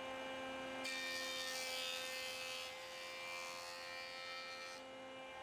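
Jointer running with a steady low hum. From about a second in until near the end, a faint hiss of the cutterhead planing a board's edge as it is fed across the bed.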